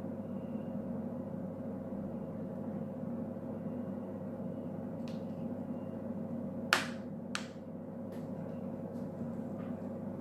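Two sharp clicks about seven seconds in as metal tweezers are handled and put down beside a plastic nail-tip stand, over a steady low hum.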